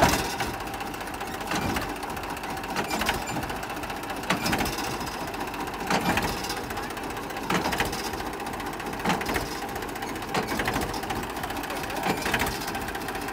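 Mahindra 265 DI tractor's three-cylinder diesel engine running steadily while its hydraulic pump holds the tipping trolley fully raised, with a sharper knock recurring about every one and a half seconds.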